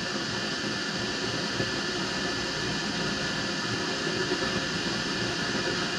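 Steady droning noise of running machinery, even throughout with no clear starts or stops.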